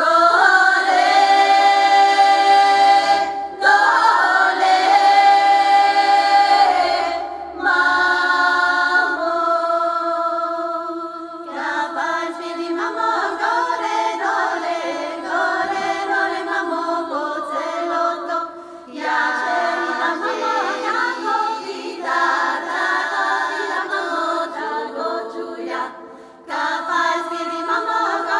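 Women's vocal ensemble singing a Bulgarian folk song a cappella in phrases separated by brief pauses, with a low voice holding a steady drone under the moving upper voices.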